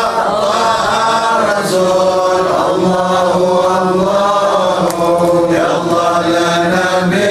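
Men's voices chanting Arabic devotional verses of a mawlid, praise of the Prophet Muhammad, led by a voice on a microphone. Long drawn-out notes slide and bend from one pitch to the next without a break.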